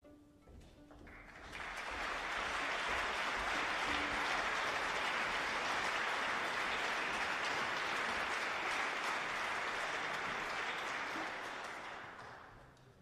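Audience applause in a concert hall, swelling up about a second and a half in, holding steady, and dying away near the end.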